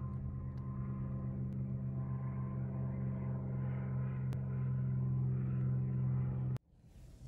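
A steady, low droning hum of several held tones with a slow pulsing beat, cutting off abruptly about six and a half seconds in.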